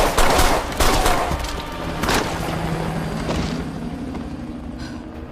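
Heavy automatic gunfire: rapid volleys of shots over the first second or so, one more shot about two seconds in, then the firing fades away.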